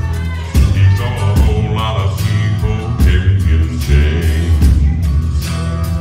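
Live southern gospel music: a male vocal quartet singing over electric bass guitar and band accompaniment.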